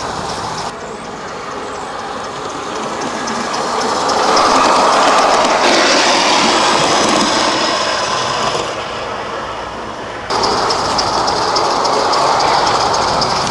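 Live-steam 0-6-0 scale locomotive running on its track: a steady rolling rail noise with rapid mechanical clicking from the wheels and running gear, and a louder rushing stretch in the middle.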